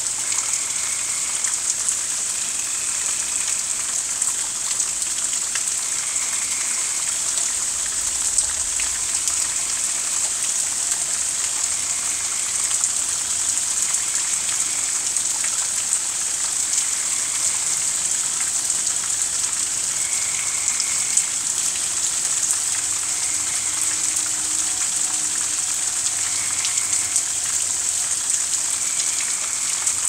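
Steady rain pattering, with many fine drop ticks. Short frog calls of about a second each sound faintly every few seconds.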